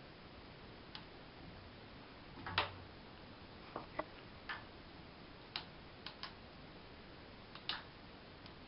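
Irregular light clicks and taps as a kitten bats at a hanging light pull cord, the cord's end and its paws knocking against the tiled wall, about ten in all. The loudest tap, with a soft thump, comes about two and a half seconds in.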